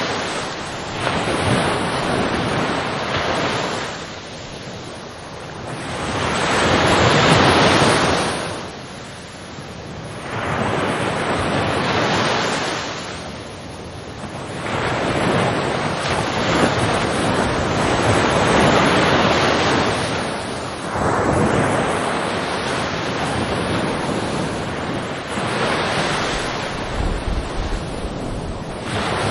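Ocean surf: waves breaking and washing in, the rush swelling and falling away every few seconds.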